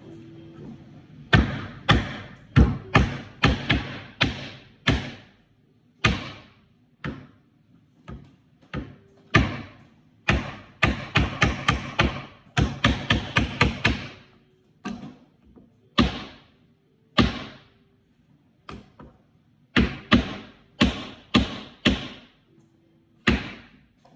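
A hammer driving small nails into the wooden panels of a birdhouse kit: a long series of sharp taps, some spaced out and some in quick runs, each ringing briefly.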